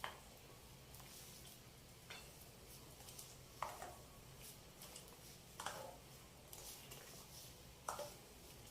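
Faint short clicks or knocks, a handful of them about every two seconds, over quiet room tone.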